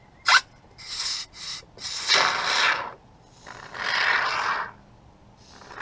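Aerosol can of expanding spray foam hissing out through its straw in about five bursts, starting with a short sharp spit. The longest and loudest burst lasts about a second, near the middle.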